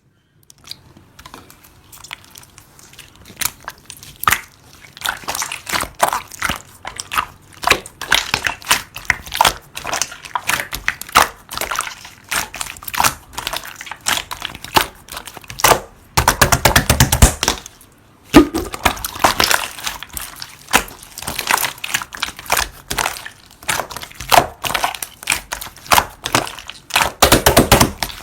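Translucent white slime being squished and pressed by hand, giving a dense run of small clicks and pops. There are louder stretches of fast crackling about sixteen seconds in and again near the end.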